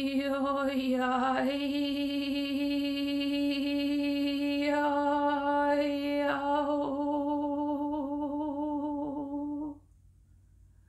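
A woman's voice holding one long, steady vocal tone at a single pitch, light-language toning, its vowel shifting a few times. It breaks off about a second before the end.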